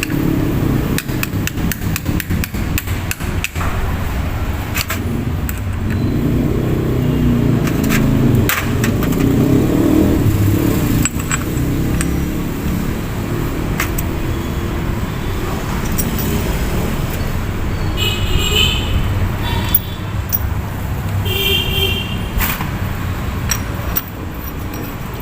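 Honda TMX 125 Alpha's single-cylinder four-stroke engine running, with fast, even firing pulses for the first few seconds and then a steadier low drone. Two short high beeps come near the end.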